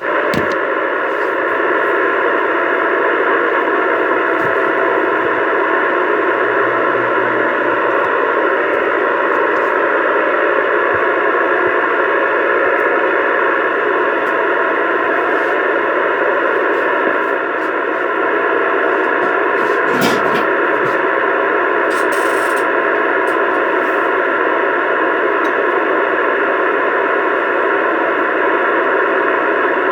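CB radio static: a steady, loud hiss from the radio's speaker, with one brief click about two-thirds of the way through.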